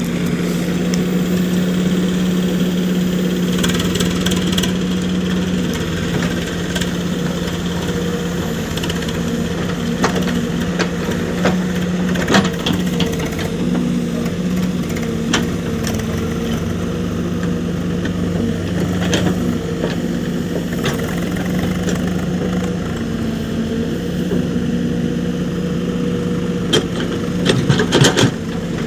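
Diesel engine of a heavy work machine running steadily under light load, with scattered sharp knocks and clanks, several of them close together near the end.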